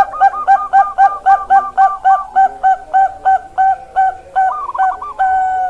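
Zebra dove (Bangkok-type perkutut) cooing: a rapid run of short, clear notes, about four a second, breaking into a quick trill near the end and closing on one longer held note.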